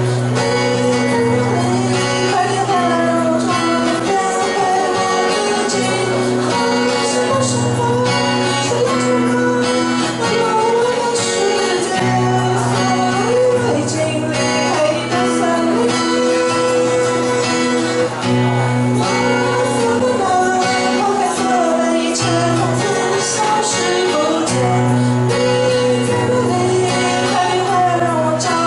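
Live acoustic pop song: singing over strummed acoustic guitar, with a shaker keeping time.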